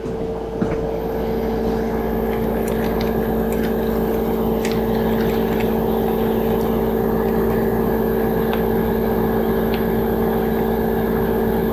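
A machine running steadily: an even motor hum with a low drone and a second tone an octave above it, with a few faint clicks.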